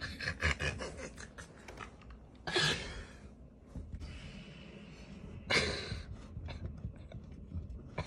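Hand tapping and patting on a window pane, a run of quick light clicks in the first couple of seconds and scattered ones after. Two short breathy bursts come about two and a half and five and a half seconds in.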